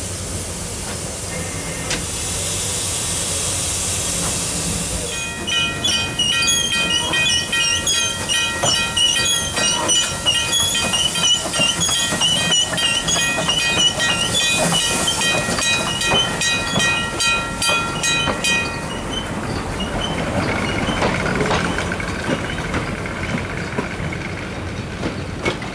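Small steam tank locomotive hissing steam, then moving with a long high screech of wheels on the rails in several steady tones with warbling squeals over them and regular clicking. Near the end the screech gives way to the rolling noise of the train.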